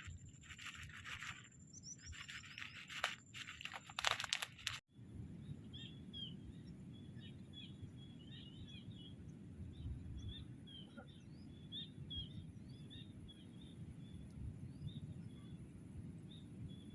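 Irregular crunching and rustling for about five seconds, then, after an abrupt cut, a steady low outdoor rumble with small birds chirping over it again and again.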